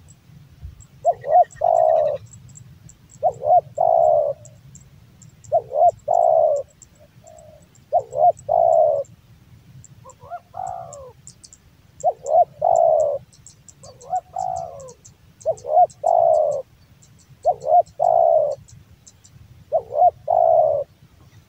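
Male spotted dove (tekukur) cooing with a deep, bass voice, repeating its phrase about every two seconds: a quick two-note lead-in, then a longer coo.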